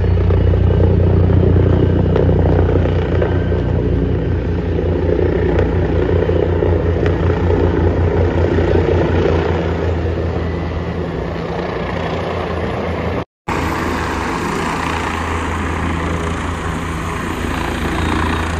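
Helicopter flying low overhead, its rotor beating in a steady rapid pulse over the engine noise. The sound drops out for a moment about two-thirds through, then carries on.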